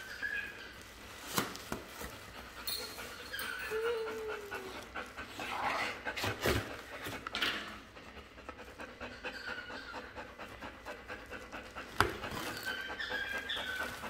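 Cardboard and bubble-wrap packaging being handled and torn open, with three sharp knocks, the loudest near the end, over steady rhythmic panting.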